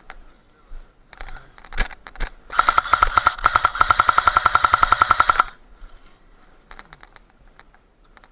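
Airsoft rifle firing: a couple of single shots, then a sustained full-auto burst of about three seconds with rapid, evenly spaced strokes, ending abruptly; a few fainter clicks and shots around it.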